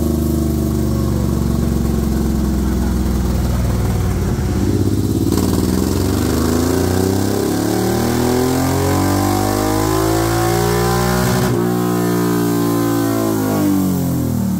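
2022 Suzuki M109R's big V-twin, with an aftermarket full exhaust, air filter and tune, running on a chassis dyno. It runs steadily at first, then about five seconds in pulls hard, climbing smoothly in pitch through the revs. About eleven seconds in the throttle closes and the revs wind down.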